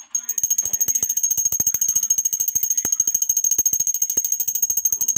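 Small brass puja hand bell rung rapidly and continuously, a bright ringing with many clapper strokes a second that starts abruptly.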